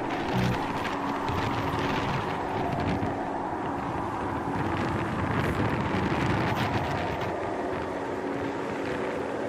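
Wind blowing across the microphone: a steady, loud rushing noise heaviest in the low end.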